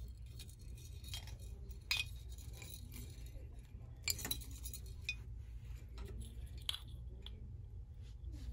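Glass Christmas ornaments clinking against one another and their metal pegboard hooks as they are handled: a few light, sharp clinks, the loudest about two seconds in and about four seconds in, over a low steady hum.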